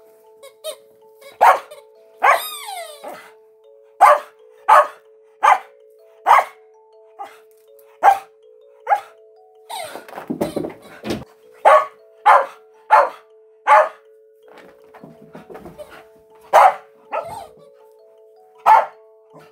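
A dog barking repeatedly, about fifteen short sharp barks, over soft background music with steady held notes.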